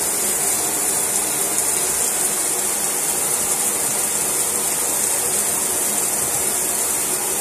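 Steady rush of water running in a bathtub, an even hiss that does not change.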